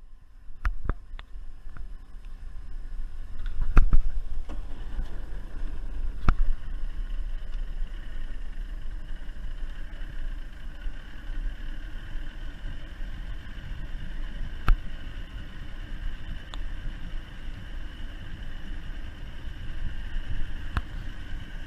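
Small boat's outboard motor running steadily under way, with a low rumble and a few sharp knocks, the loudest about four seconds in and another near fifteen seconds.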